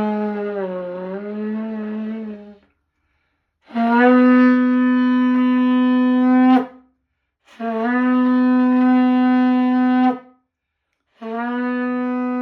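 Yemenite shofar blown in long held blasts. A wavering note stops about two and a half seconds in, followed by two steady blasts of about three seconds each with short breaks between them. A fourth blast begins near the end.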